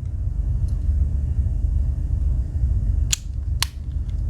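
Tools of a Victorinox Cyber Tool 29 Swiss Army knife snapping on their backsprings: two sharp metallic clicks about half a second apart near the end, with a faint tick about a second in. A steady low hum runs underneath.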